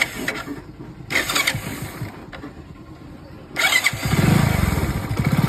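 Hero Splendor motorcycle's single-cylinder four-stroke engine being started on the electric self-starter, which has a freshly fitted 6001 bearing: a brief starter burst about a second in, then a second one at about three and a half seconds, when the engine catches and runs with a rapid, even beat.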